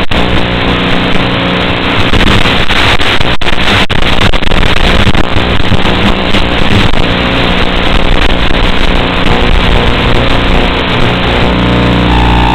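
Steady high buzz of a Beta65S brushed-motor micro quadcopter in flight, with the pitch shifting as the throttle changes and settling into a steadier tone near the end.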